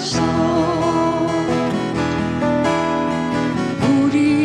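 Live folk song: a woman's sung line ends on a held, slightly wavering note, then acoustic guitar accompaniment carries the gap before the voice comes in again near the end.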